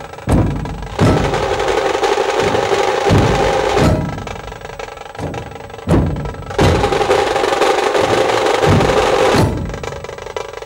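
Dhol-tasha drum ensemble playing: deep dhol strokes with rapid tasha rolls over them, in two long loud stretches of about three seconds each, with the booming strokes standing more alone between them.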